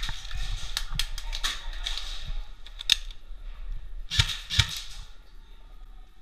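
Airsoft guns firing irregular single shots: scattered sharp cracks over the first second and a half, one near three seconds, and two louder ones a little after four seconds.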